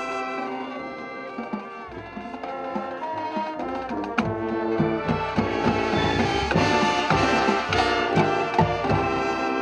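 Marching band playing: brass and woodwinds sustaining chords, with the drum line's strikes coming in strongly from about a third of the way in.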